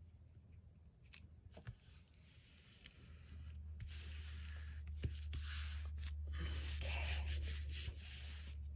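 A hand rubbing a torn paper strip flat onto an old book page, a dry papery swishing that starts about three seconds in and carries on steadily, after a few light paper ticks.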